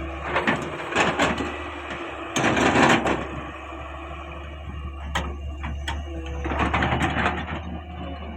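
Caterpillar 385C hydraulic excavator running with a steady low hum, with several knocks and a loud rush of soil and stones about two and a half seconds in as the bucket handles a load, then more clattering near the end.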